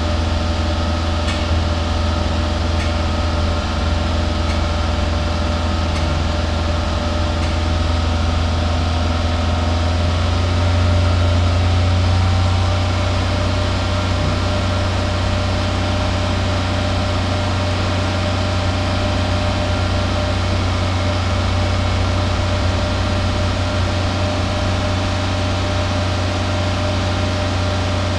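Toyota 2SZ-FE 1.3-litre four-cylinder engine idling steadily, heard at the tailpipe just after a WAKO'S RECS intake-cleaner treatment while it burns off the cleaner. The idle rises slightly about ten seconds in and holds there.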